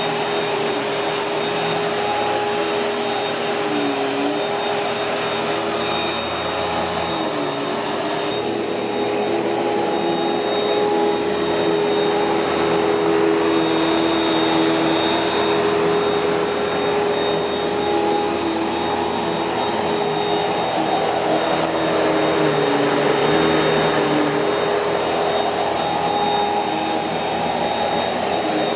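Panasonic MC-UG471 bagged upright vacuum cleaner running steadily, its motor hum and whine holding pitch, with a couple of brief dips in tone early on in the lower hum.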